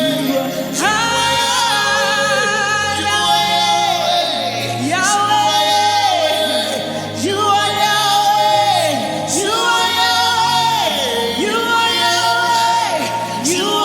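Gospel worship music: a voice singing long, held, wavering notes without clear words, each gliding in pitch at its end, over sustained low chords.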